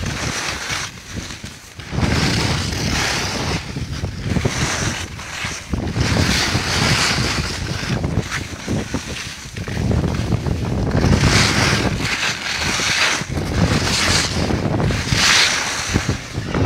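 Wind buffeting the microphone of a camera carried by a downhill skier, with skis hissing and scraping over packed, cut-up snow in repeated surges.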